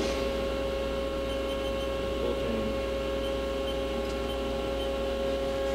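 2008 Haas EC-500 horizontal machining center running with a steady hum and a whine of several steady tones.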